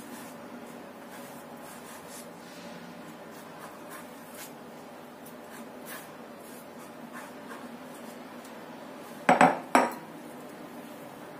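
Faint light taps and brushing of fingers gathering chopped spring onion on a cutting board, then, about nine seconds in, two loud clatters close together of a ceramic bowl knocking on the counter as it is handled.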